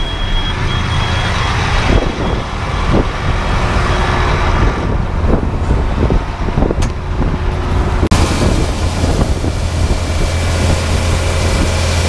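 John Deere tractor running steadily with a low hum, driving the grain auger, with footsteps on gravel. About eight seconds in, a rushing hiss starts and keeps on as shelled corn begins pouring from the wagon into the auger pit.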